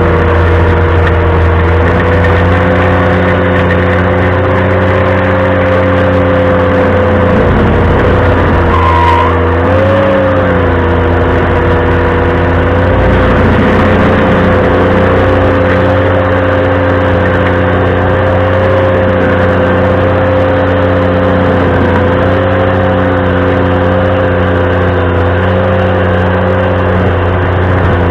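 Ventrac compact tractor running a stump grinder at full speed, a loud steady machine sound carrying a strong high tone. The pitch dips and wavers briefly about eight to ten seconds in, as the cutter takes load.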